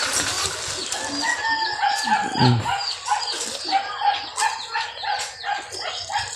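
Chickens: a rooster crowing about a second in, then a fast run of short clucking calls.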